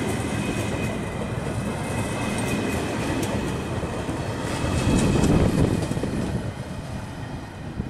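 Russian Railways passenger coaches of a departing train rolling past, the wheels clicking over rail joints with a faint steady squeal. The sound swells about five seconds in as the last coach passes, then fades as the train pulls away.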